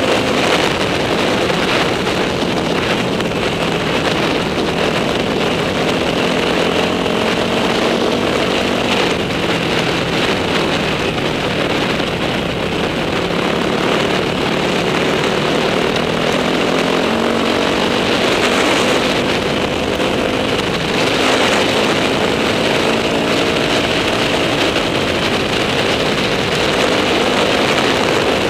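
Dirt bike engine running steadily while the bike is ridden along a dirt trail, its pitch rising and falling gently with the throttle.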